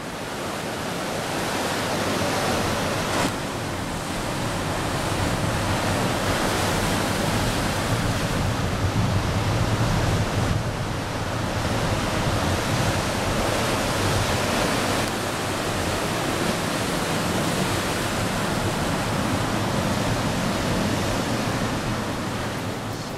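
Steady rushing roar of large breaking ocean surf mixed with wind, swelling and easing slowly. It fades in over the first second or two.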